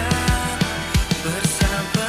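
Background rock music with a steady drum beat, about three hits a second, under sustained instrument tones.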